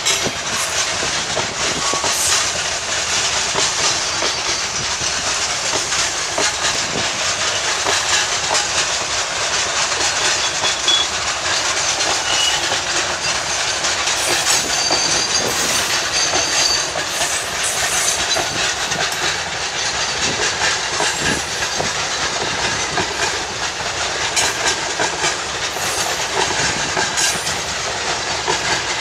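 Freight train boxcars rolling past, their steel wheels clattering steadily over the rail joints with a continuous rumble and hiss.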